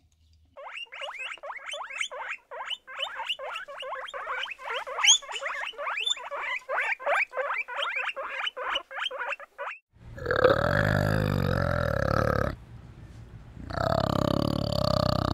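Animal calls: a rapid run of short, high chirps, about four a second, for some nine seconds, then a long, low call about ten seconds in and another near the end.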